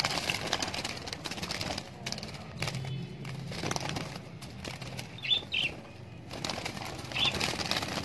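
Budgies flapping and fluttering inside a small wire cage as more birds are put in by hand. A few short, high budgie calls come in the second half.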